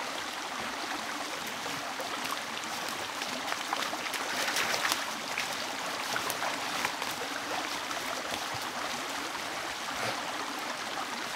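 Water: a steady rushing hiss scattered with many small drip-like ticks, a little louder about four to five seconds in.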